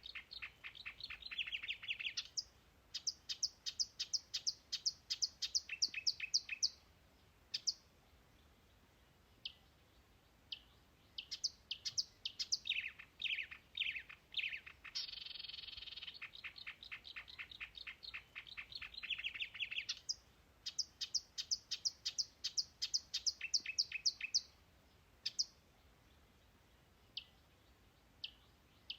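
A songbird singing: rapid trills of short, repeated high notes in phrases a few seconds long, with pauses of a few seconds between phrases and the odd single note in the gaps.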